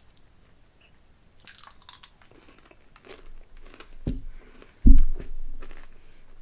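Close-miked crunching and chewing of a mouthful of four candy-shelled M&M's. Scattered crisp crunches build up, with two heavy bites about four and five seconds in, the second the loudest.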